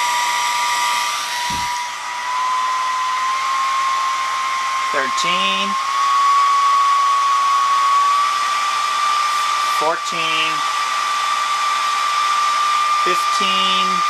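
Blower-style hair-dryer fan, a small DC motor spinning its impeller, running with a steady whine that rises slowly in pitch as the supply voltage is turned up to its maximum.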